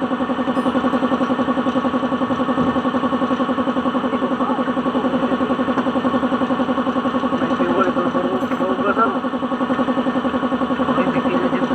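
An engine idling steadily, a fast even pulse.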